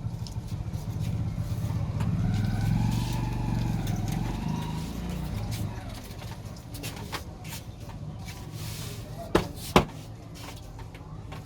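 Street traffic: a motor vehicle passes, its engine pitch rising then falling, over a steady low rumble. Near the end come two sharp knocks about half a second apart, the loudest sounds here.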